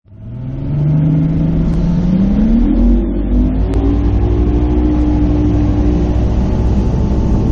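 Bass boat's outboard motor accelerating. Its pitch rises for about a second and a half and then holds steady at running speed, over a loud, steady rushing noise.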